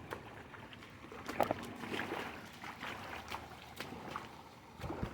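Footsteps splashing and scuffing in a shallow creek, light irregular splashes over the faint sound of the water.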